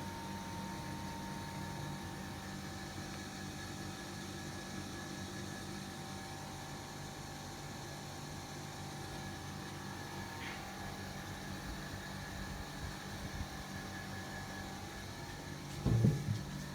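Sivicom 28-inch mini ceiling fan running steadily, a motor hum with a few faint high whining tones, one of which drops out about two-thirds of the way through. Near the end come two short thumps.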